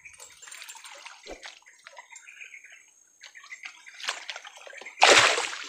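Water sloshing and splashing, with one loud, sudden splash about five seconds in.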